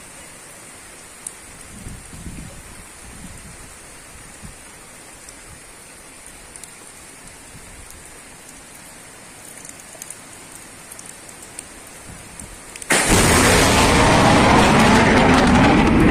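Steady rain falling on wet ground and puddles, with a thin high hiss over it and a few low rumbles a couple of seconds in. About 13 seconds in the sound jumps abruptly to a much louder, even rush of noise that lasts to the end.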